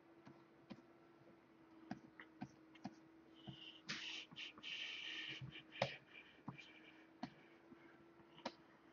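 Faint, scattered clicks of a computer keyboard and desk controls, over a steady faint hum, with a short hiss about four seconds in.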